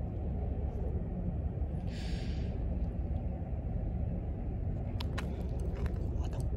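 Steady low outdoor rumble, with a brief hiss about two seconds in and a few light clicks near the end.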